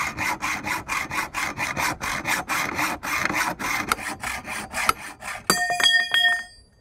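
Hacksaw cutting an aluminium roller-furler foil extrusion to length, in quick, even strokes of about five a second. About five and a half seconds in, the sawing stops and a few ringing metallic clinks follow as the cut goes through.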